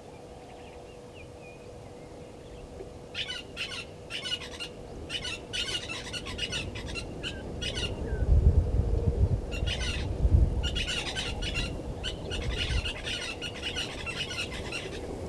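Blacksmith lapwings calling with rapid runs of sharp, metallic 'tink' notes in two bouts, the first starting about three seconds in and the second after a short pause. A low rumble comes in the middle.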